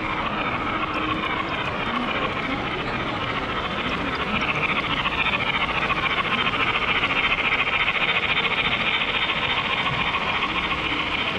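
HO scale model trains running along the layout's tracks, a steady hissing rumble that swells for several seconds in the middle as a train passes close by.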